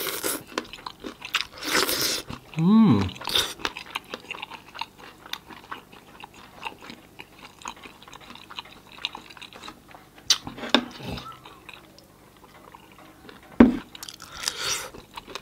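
A person chewing and biting roast chicken pulled off the bone by hand, close to the microphone, with many small clicks and a short hum about three seconds in.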